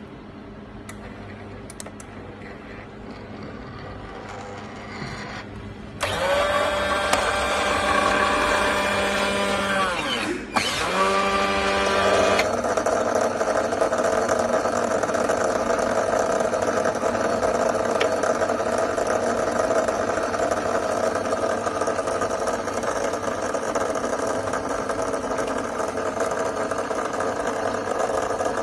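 Rotillicious automatic roti maker working: a faint hum and a few ticks, then about six seconds in an electric motor starts with a steady whine while the dough ball is pressed flat. The whine winds down to a stop, starts again briefly and stops. After that the machine keeps up a steady whirring hum while the flattened roti cooks.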